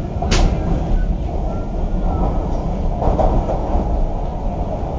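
Interior of an MTR Kwun Tong Line Q-Train (CRRC Qingdao Sifang) metro car in motion: a steady low rumble from wheels and running gear. A sharp click comes about a third of a second in, and a brief louder rattle about three seconds in.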